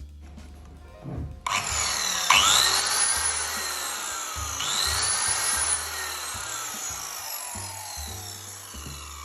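Okatz CS7V 1300 W circular saw cutting through wood, starting about a second and a half in and fading gradually toward the end, over background music.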